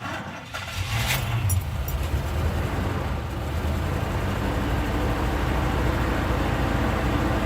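1983 Chevrolet C10's 305 small-block V8 running steadily on its freshly rebuilt four-barrel carburetor, with a few light clicks about a second in.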